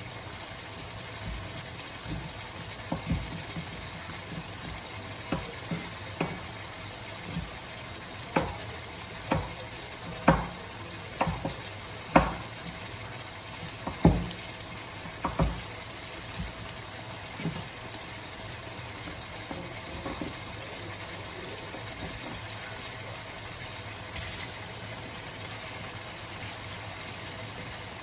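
Chicken pieces frying in oil in a pan, with a steady sizzle and a run of sharp pops and spits from the hot fat, densest in the middle and dying away after about two-thirds of the way through.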